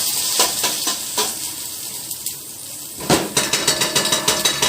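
A garlic clove frying in ghee in a pan, sizzling steadily, while a spoon clinks and scrapes against the pan. The clinks come in a quick run over the last second and a half.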